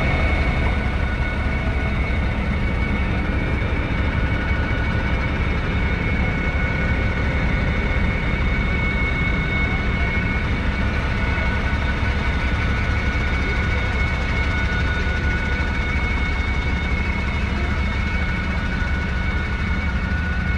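Claas Arion 650 tractor's 6.8-litre six-cylinder diesel engine running steadily while ploughing with a five-furrow reversible plough, with a steady high whine over the low engine note.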